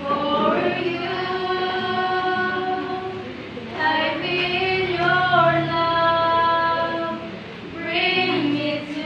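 Two girls singing a song together, long held notes in phrases with short breaks for breath about three and a half and seven and a half seconds in.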